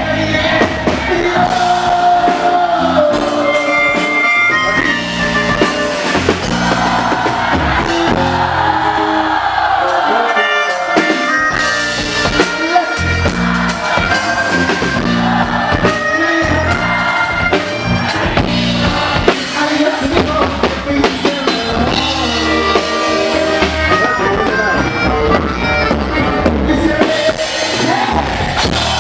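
A regional Mexican band playing live: a corrido with drums.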